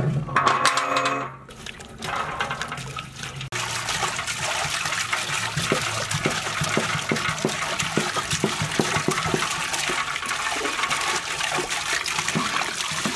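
Water poured from a plastic jug into a large metal cooking pot, a steady splashing pour that grows louder about three and a half seconds in. A brief pitched sound comes in the first second and a half.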